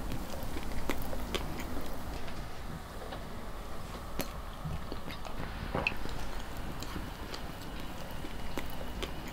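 A man drinking from a glass bottle: scattered small clicks and knocks of glass and swallowing over a steady low hum.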